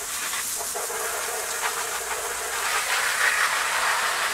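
Garden hose spraying water onto hanging chest waders to rinse them off: a steady hiss of spray and splatter, growing a little louder about halfway through.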